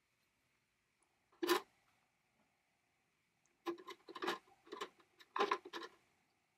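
Small metal carburetor parts being set down in a stainless steel wire-mesh basket, clinking against the mesh: one knock about a second and a half in, then a quick run of clinks near the end as the carburetor body and covers are laid in.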